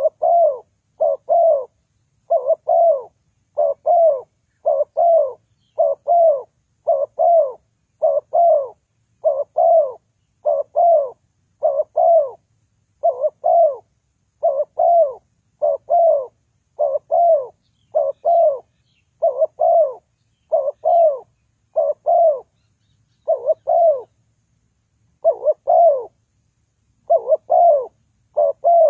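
Spotted dove cooing: short, low, paired coo notes repeated steadily at roughly one pair a second, with a brief pause about three-quarters of the way through.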